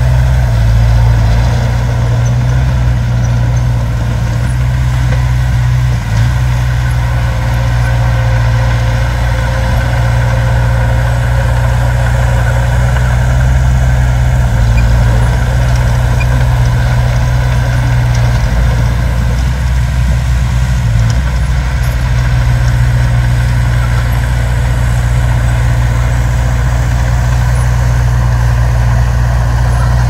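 Diesel engines of earthmoving machines, a crawler bulldozer and a dump truck, running steadily with a deep low-pitched drone.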